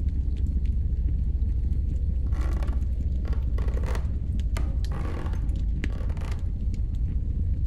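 A steady deep rumble, with several short scraping noises in the middle and a few faint clicks.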